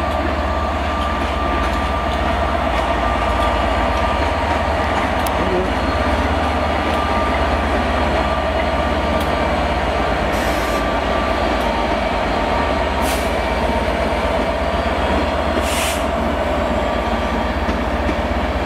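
Class 67 diesel-electric locomotive going by with its train of coaches: its two-stroke V12 engine gives a steady drone over the rumble of the wheels on the rails. Three short hisses come through in the second half.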